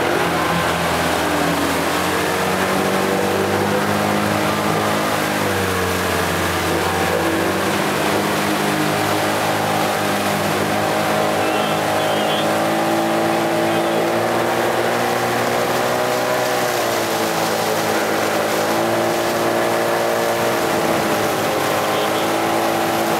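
Outboard motor running at high throttle, its pitch holding steady and sagging then climbing back a few times, over the rush of water and wind.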